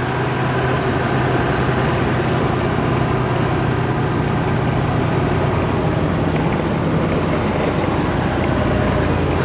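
Loaded semi-truck heard from inside the cab while driving: the diesel engine's steady low drone and road noise, unchanging throughout.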